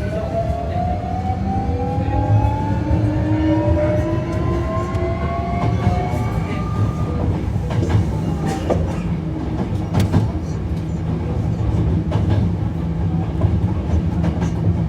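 Inside a Hankyu 1300 series electric train, the Toyo IGBT VVVF inverter motors whine in several tones that rise in pitch as the train accelerates. The whine fades after about seven seconds, leaving the steady rumble of wheels on rail with a few sharp clicks.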